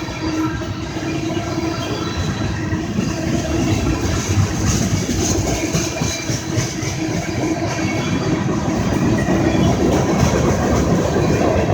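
Long, slow CSX freight train's cars rolling past, a steady clatter of wheels on the rails, growing a little louder toward the end.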